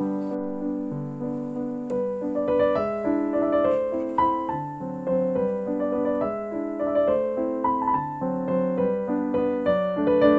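Background piano music: a steady run of gently played notes and chords.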